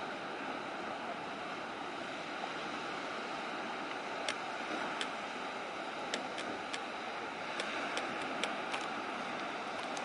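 Steady outdoor rush of wind and sea surf breaking along a rock breakwater. About ten short, sharp high ticks are scattered through the middle of the clip.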